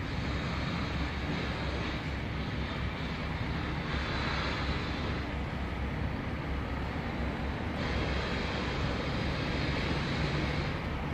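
Wind rumbling and buffeting on the microphone, over a steady outdoor hiss of distant road traffic. The hiss swells about four seconds in and drops off abruptly near the eighth second.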